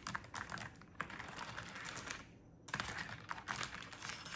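Fast typing on a clicky computer keyboard: a rapid stream of key clicks, with a short pause about halfway through.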